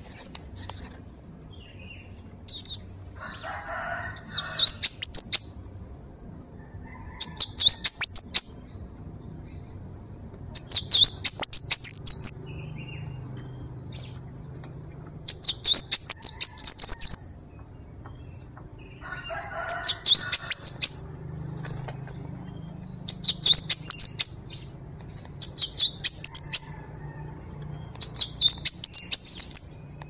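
Cinereous tit (gelatik batu) singing: eight bursts of rapid, high, repeated notes, each about a second and a half long, with pauses of a couple of seconds between them.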